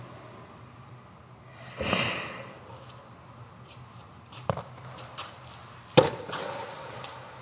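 A tennis ball machine shooting out a ball with a short rush of air about two seconds in, a lighter knock of the ball bouncing on the court, then a sharp crack of a racket striking the ball on a forehand about six seconds in, the loudest sound.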